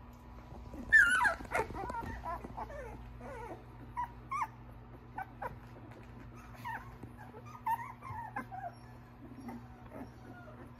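Litter of young Australian Shepherd puppies crying and whining: a loud high cry about a second in, falling in pitch, then short whines on and off.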